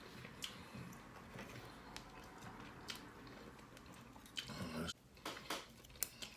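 Faint chewing of a bite of steak, with a few small clicks and a short, slightly louder low sound a little past four seconds in.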